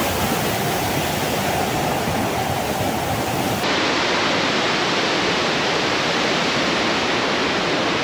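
Steady rushing of a large waterfall, a dense even wash of water noise that starts and stops abruptly, with a cut to another take about three and a half seconds in.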